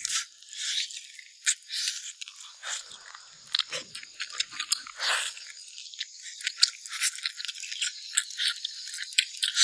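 Close-up gnawing and chewing on a braised beef spine bone: sharp, irregular crunches as teeth bite through the crunchy cartilage (脆骨) on the bone.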